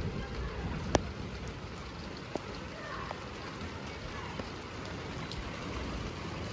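Rain falling in a steady patter, with a few single drops ticking sharply on nearby surfaces, the loudest about a second in.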